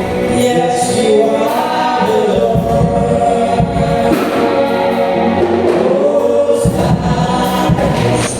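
Choir singing a gospel song with band backing.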